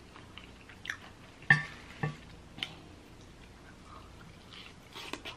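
A spoon tapping and drizzling wet sauce over a crispy fried chicken drumstick, with a few short clicks and drips. Near the end comes a soft bite into the fried chicken.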